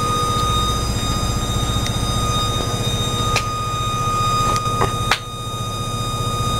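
Passenger railcar's air whistle sounding one steady high tone without a break over a low steady hum, with a few sharp clicks about three to five seconds in. It is blowing without anyone pulling it, which the riders put down to excess air pressure.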